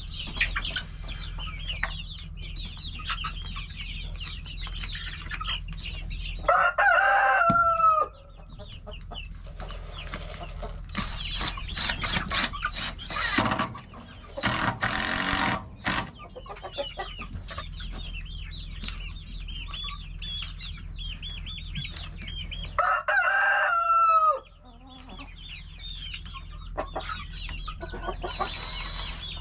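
Chickens clucking, with a rooster crowing twice: once about a quarter of the way in and again about three quarters through, each crow the loudest sound and falling in pitch at its end. Around the middle there are a few seconds of noise over the clucking.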